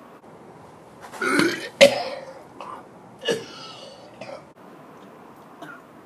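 A man gagging and retching, with coughs, as he brings up a mouthful of raw superhot chilli pepper that burns too much to swallow. There is a loud heave about a second in, then a sharp, loudest burst just before two seconds, then several smaller coughs and retches, the last faint one near the end.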